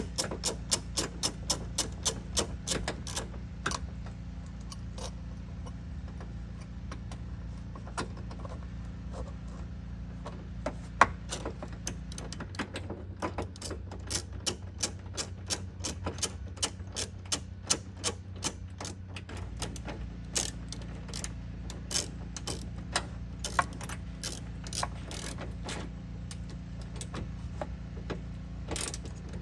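Ratchet wrench clicking as a 12 mm fastener is tightened, with a quick regular run of clicks at first, then scattered clicks and further runs.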